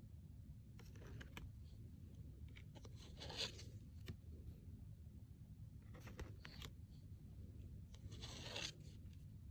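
Oracle cards being handled: four short, soft scraping swishes, one every two to three seconds, as cards are slid across one another, over a low steady hum.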